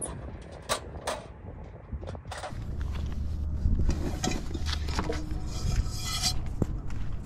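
Clicks as a portable camp stove's lid is opened, then rummaging and the clatter and clink of cookware as a frying pan is taken out, over a low steady hum.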